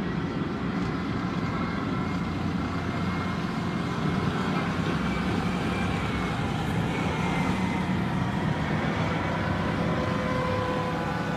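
Tracked amphibious assault vehicles running steadily as they come ashore through the surf: a low engine drone with faint high whining tones over it.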